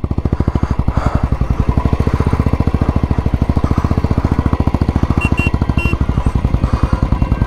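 Single-cylinder Royal Enfield Classic motorcycle engine running at low revs with an even, rapid beat as the bike is ridden slowly through soft sand.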